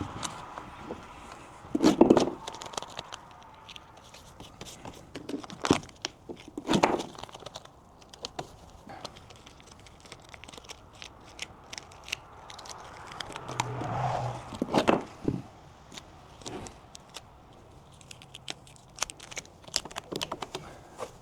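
Scattered knocks, scrapes and crinkling from hands-on work with flashing materials at a door opening, with the loudest knocks about two, seven and fifteen seconds in.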